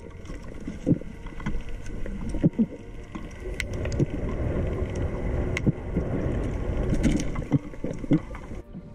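Water rushing past an underwater camera as a freediver swims up from the bottom, a low noise that swells in the middle. Scattered sharp clicks and knocks sound through it.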